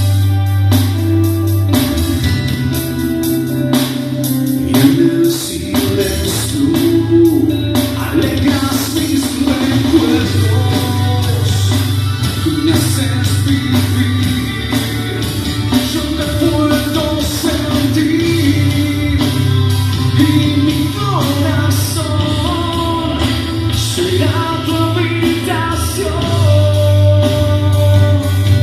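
A live rock band playing a song: electric guitar over a heavy, sustained bass line, with sharp hits in the first few seconds and a gliding melody line after that.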